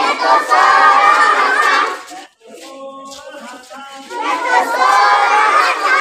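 A group of children shouting out together in unison, in two loud bursts of about two seconds each, with quieter single voices in between.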